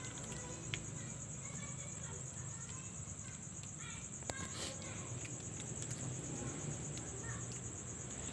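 Night insects trilling in one steady, unbroken high-pitched drone, over a low background hum.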